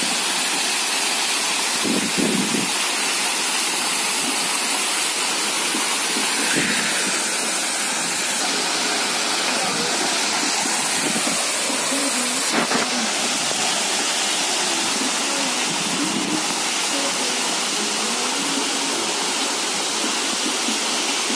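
Small waterfall spilling over rock ledges into a shallow pool: a steady rush and splash of falling water.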